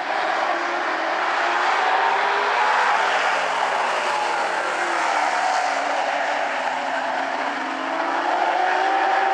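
A pack of vintage modified stock cars running at race speed. Their engines sound together, the pitch sinking slowly and then climbing again near the end as the cars go through a turn and back onto the throttle.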